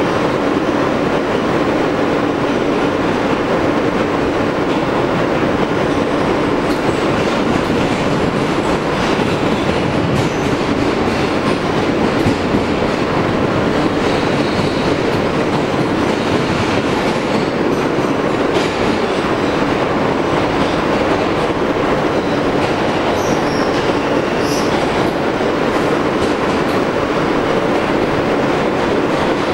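New York City subway car running through a tunnel, heard from inside the car: a steady rumble of wheels on rail with clickety-clack, and a few brief high wheel squeals about three-quarters of the way through.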